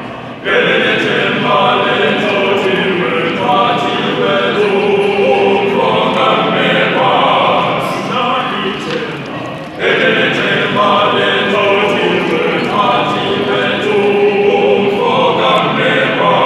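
Male voice choir singing in several parts together. A phrase comes in strongly about half a second in, and after a short drop a new phrase starts about ten seconds in.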